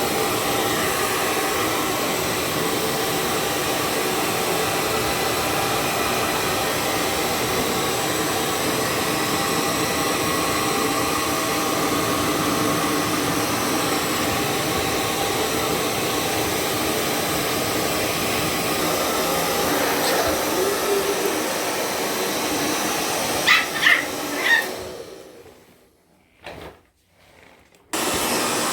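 A hand-held hair dryer blows steadily, its motor humming with a whine, while it dries a German shepherd's coat. A few sharp barks come near the end. The dryer then winds down to near silence and starts up again suddenly just before the end.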